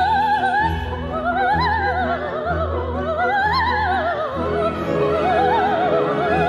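Soprano singing operatically with an orchestra accompanying: a held note with wide vibrato, then phrases that climb and fall again twice before settling on another vibrato note.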